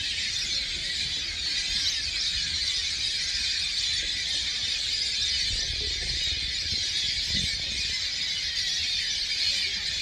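A dense, steady chorus of high calls from a huge flock of migrating birds flying overhead, with a low rumble underneath.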